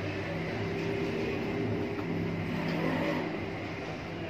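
Steady low mechanical hum over a rumble of noise, its pitch shifting a little partway through.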